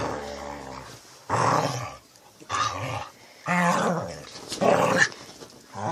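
Dogs growling in rough play: about five growls in a row, each half a second to a second long.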